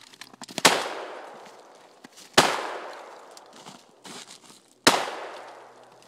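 Three blasts from a Browning 12-gauge shotgun, about two and a half seconds apart, each followed by a long echo that fades away.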